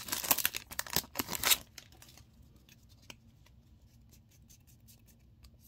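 Foil booster pack wrapper crinkling and tearing open for about the first second and a half. After that come a few faint clicks from the trading cards being handled.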